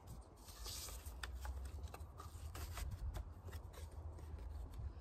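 The back being fitted onto a photo frame by hand: a scatter of small clicks, scrapes and rubbing as the backing board and frame are pressed together.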